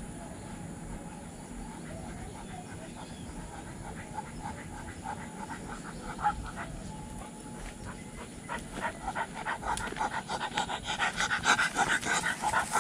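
A pit bull panting fast and rhythmically, about four breaths a second, growing much louder as it comes up close in the last few seconds.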